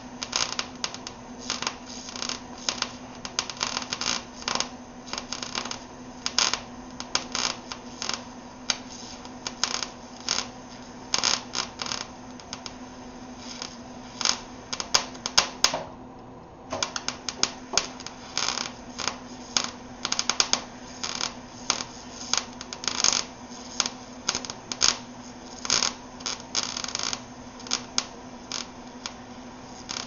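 MIG welder arc crackling and popping unevenly as a steel subframe connector is welded to the car's underside. The arc stops for about a second near the middle, then strikes again, over a faint steady hum.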